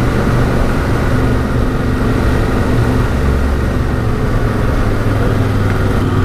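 Yamaha Ténéré 700's parallel-twin engine running at fairly steady revs while the bike is ridden, heard from the rider's camera.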